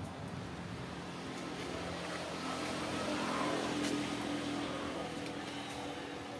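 A motor vehicle's engine passing, growing louder to a peak about midway and then fading.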